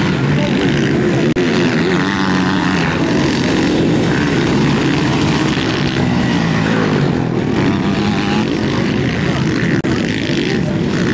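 Several motocross bikes' engines running and revving as they race over a dirt track, the pitch rising and falling as riders work the throttle.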